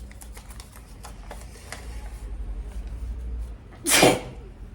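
A single loud human sneeze about four seconds in, brought on by sneezing powder.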